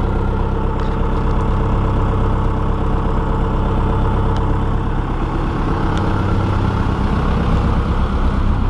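1997 John Deere 190E excavator's diesel engine idling steadily. The owner says it needs a new muffler.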